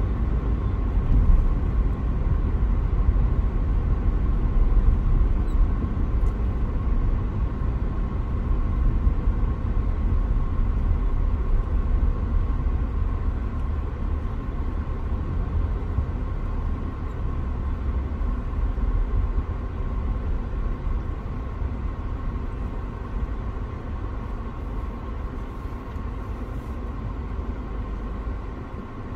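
Jet airliner engines running: a deep rumble under a steady whine, gradually fading.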